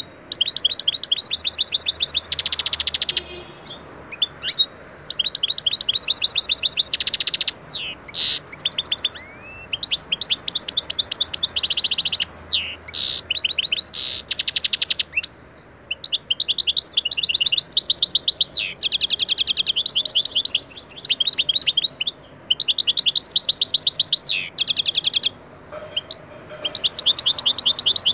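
European goldfinch singing: high, rapid trills and twittering notes in song phrases a few seconds long, broken by short pauses.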